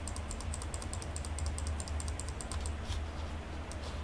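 Rapid, even clicking at a computer, about eight clicks a second, as an image is zoomed in step by step. The clicking thins to a few scattered clicks about two and a half seconds in, over a steady low hum.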